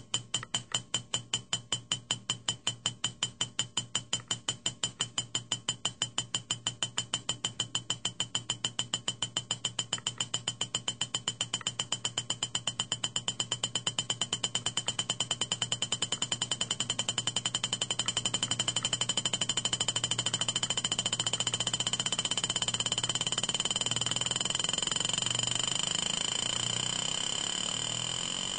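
Steel ball bouncing on a Liquidmetal metallic-glass striking plate inside a clear tube: sharp metallic ticks with a high ringing, about three or four a second at first, coming ever faster until they merge into a continuous buzz about two-thirds of the way through. It keeps bouncing this long because the metallic glass stores and returns nearly all of the ball's elastic energy.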